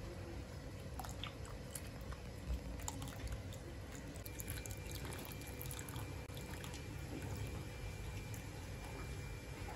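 Custard-powder paste poured into hot milk while a wooden spoon stirs it: faint liquid sloshing and drips with scattered light clicks of the spoon, over a low steady background rumble.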